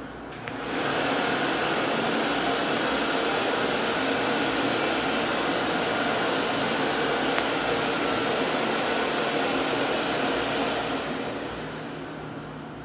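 Automatic warm-air hand dryer switching on about half a second in and blowing steadily, then running down over the last couple of seconds.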